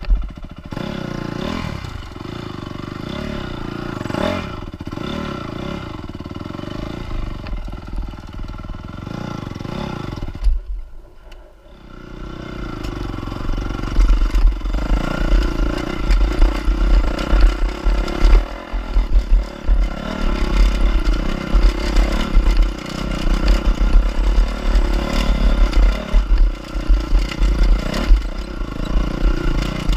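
Off-road trail motorcycle engine running and revving as the bike is ridden over rough ground, with clattering and scraping. The engine sound dips briefly about eleven seconds in, then returns louder with heavy low knocking.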